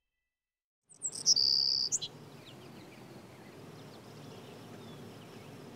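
Outdoor ambience cutting in about a second in, led by a loud, high bird call lasting under a second, then a steady low hush with faint scattered bird chirps.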